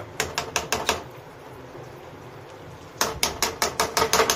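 A stainless steel mesh strainer knocked against the rim of a metal kadai to shake drained penne out into the sauce: a run of about five quick taps, then after a pause of about two seconds a second run of about eight.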